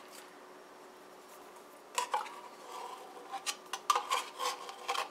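Metal clinking and scraping against a tin can and bowl, a quick run of sharp clicks and scrapes with a short ring, starting about two seconds in.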